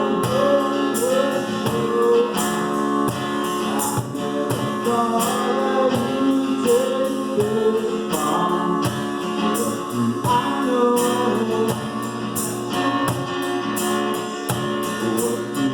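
Live acoustic band music: singing over acoustic guitar, with a steady beat of percussion hits.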